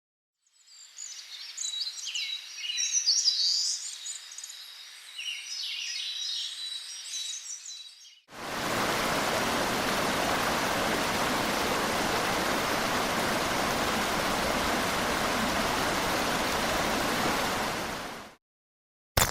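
Birds chirping and twittering for about the first eight seconds, then a steady rush of flowing water, like a stream, for about ten seconds, which stops abruptly. A short click comes right at the end.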